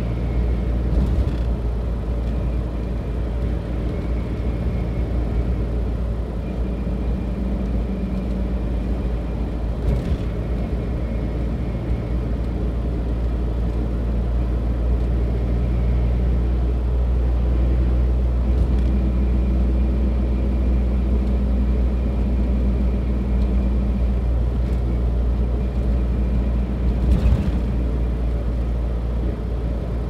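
Steady engine and road rumble heard inside a moving car's cabin, with a few brief clicks along the way.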